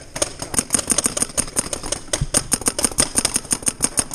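Paintball marker firing in rapid, even shots, about eight a second. One dull thump about two seconds in.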